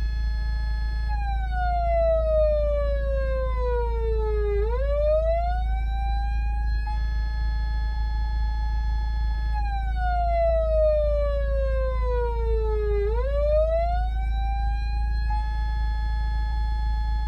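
Patlite SAP500BZ emergency-vehicle siren amplifier sounding an electronic siren tone through its speaker. A held high wail slowly slides down over a few seconds, then sweeps quickly back up and holds again; this happens twice. A steady low hum runs underneath.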